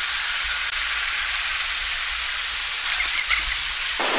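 A steady, even hiss with a faint low rumble underneath, cutting off abruptly near the end.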